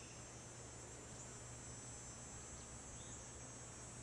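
Faint, steady, high-pitched chorus of insects trilling in the grass, with a low steady hum beneath.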